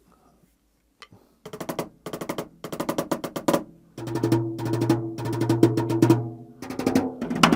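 Acoustic drum kit fitted with mesh heads, played unamplified: fast runs of stick strokes starting about a second and a half in. From about four seconds in they move onto a lower drum whose pitch rings on under the strokes.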